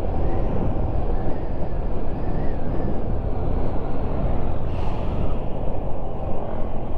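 Steady wind rush and road noise from a Honda Wave Alpha underbone motorcycle on the move, heavy in the low end, with a brief higher hiss about five seconds in.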